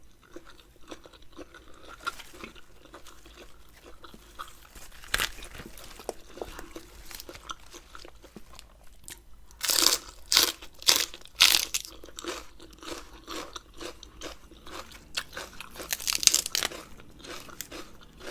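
Close-miked eating: chewing with many small wet clicks, and bursts of louder crunching bites about ten to twelve seconds in and again around sixteen seconds.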